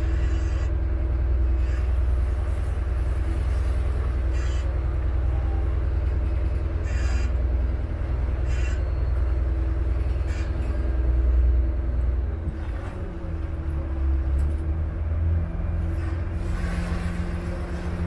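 Vaporetto water bus's diesel engine rumbling steadily as the boat cruises. About two-thirds of the way through, its note slides down to a lower pitch.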